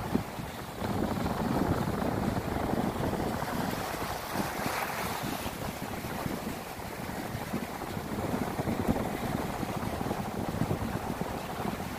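Small sea waves breaking and washing up over a sandy shore, with wind buffeting the microphone.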